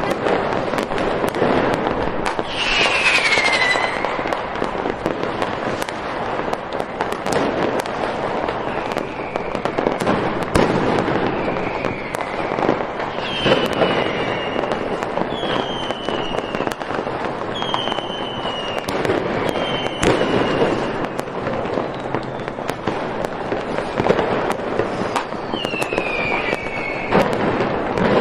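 Fireworks going off without a break: dense crackling and many sharp bangs, with whistling rockets whose whistles fall in pitch about half a dozen times.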